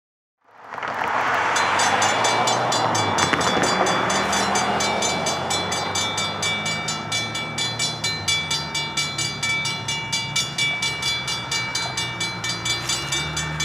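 Railroad grade-crossing warning bells ringing in fast, even strokes as the crossing gates come down, over a low steady rumble. The sound starts suddenly about half a second in.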